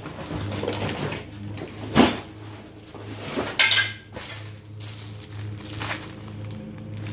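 Small metal sewing machine parts clinking and knocking as they are handled and set down on a worktable, with the sharpest knock about two seconds in. A low steady hum runs underneath.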